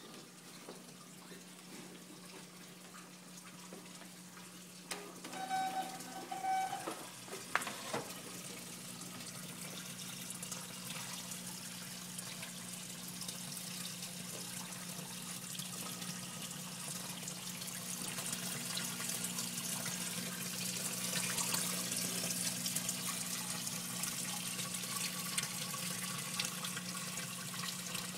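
Water splashing and trickling into a reef aquarium's sump, with a steady low hum under it; the rush of water grows louder toward the end. A few brief squeaks and a knock come about six to eight seconds in.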